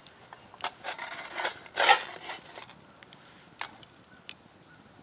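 Wooden spoon stirring dry green coffee beans in a metal camp pot: scattered clicks and rattles of the beans, with a short scrape about two seconds in. The beans are being dry-roasted with no oil, so there is no sizzle.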